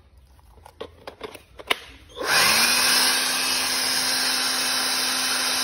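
A few handling clicks, then about two seconds in a Hukan 21V cordless dust blower switches on and runs at a steady speed: a loud rush of air over a steady motor hum.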